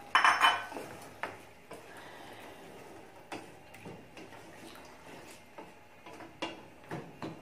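Wooden spatula stirring a stew in a stainless steel pot, knocking against the pot's side in irregular sharp taps, about a dozen in all. A short, louder clatter of kitchenware opens it.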